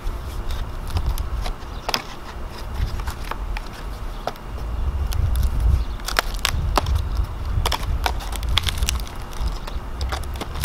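Bark being pried off a maple burl with a pointed hand tool: irregular cracks and snaps as pieces of bark break away, coming thicker in the second half.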